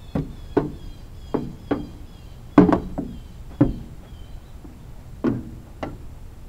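About nine sharp knocks at uneven intervals, each with a short ring; the loudest comes about two and a half seconds in.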